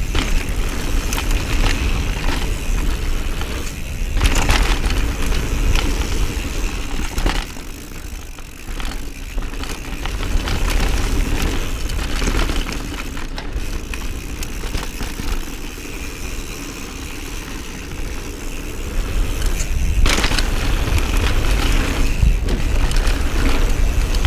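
Mountain bike ridden fast down a dirt jump trail: wind rumbling on the action camera's microphone over the noise of tyres on dirt and the bike rattling. It turns quieter for a couple of seconds about a third of the way in.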